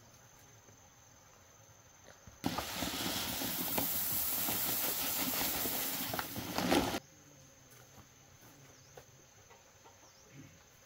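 Dry rice husks poured from a sack into a woven bamboo basket: a steady rushing hiss with small ticks, starting about two and a half seconds in and stopping abruptly some four and a half seconds later.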